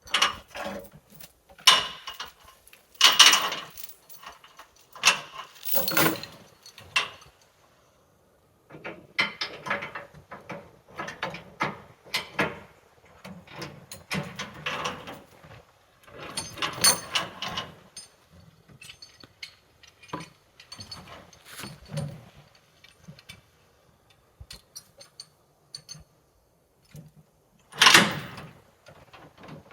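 Irregular clanks and knocks of metal gear being handled, coming in clusters with short pauses, with one loud knock near the end.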